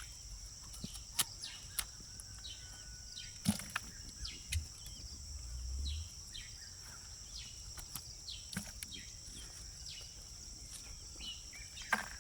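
Steady high-pitched drone of crickets, with short falling bird chirps scattered throughout and a few sharp clicks and knocks of handling.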